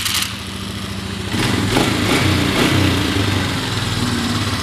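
2003 Polaris Sportsman 400 ATV's single-cylinder four-stroke engine running just after starting, idling and then picking up speed about a second in, its revs wavering.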